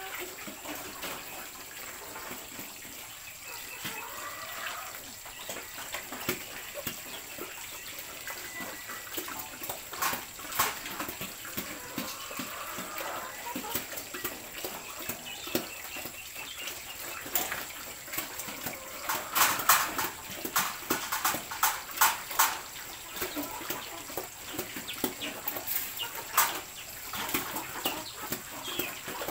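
Farrowing-pen sounds: a sow at the feed trough of her metal crate, with scattered clicks and knocks that bunch up about ten seconds in and again past the middle, faint high animal calls, and a thin steady high tone.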